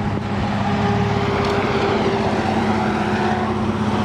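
A steady engine hum: a low drone with a fainter whine above it, even throughout.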